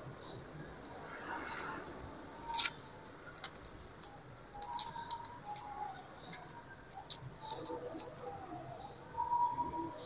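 Hands handling and pressing pieces of yellow tape around a wire: irregular small crackles and sharp clicks.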